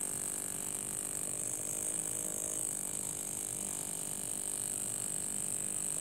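Tiny single-cylinder, single-acting brass model steam engine running steadily and fast on a few pounds of compressed air, with a steady high hiss.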